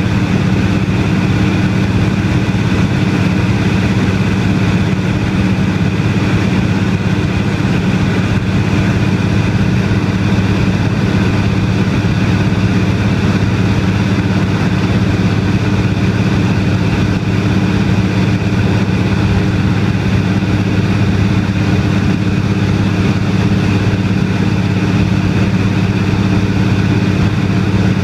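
Engine and propeller of a de Havilland Canada DHC-2 Beaver floatplane droning steadily in flight, heard from inside the cabin.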